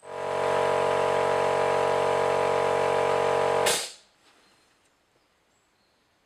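A motor-driven machine running at a steady pitch for nearly four seconds, then cut off abruptly with a short sharp burst of noise at the end.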